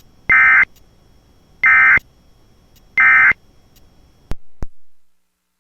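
Emergency Alert System end-of-message data bursts: three short, identical bursts of screechy modem tones about a second and a third apart, marking the end of the alert. Two sharp clicks follow near the end.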